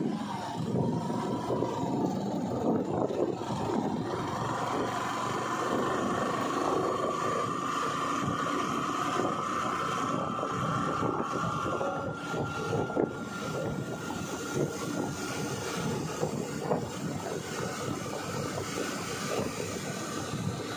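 A vehicle driving along a road: steady road and wind noise, with a faint whine that rises slowly in pitch through the middle as it gathers speed.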